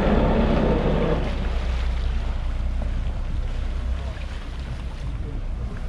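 Marex 310's Volvo Penta D4 diesel engine running at low power as the boat pulls away, a low steady rumble that is louder for the first second and then settles. Wind buffets the microphone.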